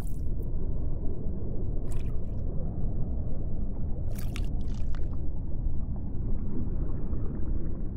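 A low, watery, rumbling ambient drone with brief hissing swishes about two, four and five seconds in.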